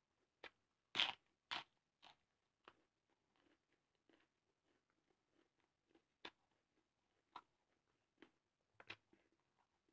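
Raw lettuce leaf being bitten and chewed close to the microphone: a run of crisp crunches about two a second, the loudest about a second in, then a few sparser crunches later on.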